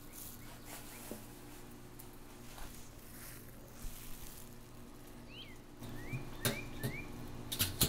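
Quiet outdoor ambience with a steady low hum and a few short bird chirps. Near the end come a couple of sharp clicks and knocks as the Weber Smokey Mountain's steel lid is set in place on the smoker.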